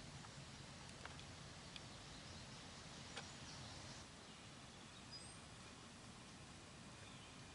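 Near silence: faint outdoor hiss with a few soft clicks and an occasional faint, high bird chirp.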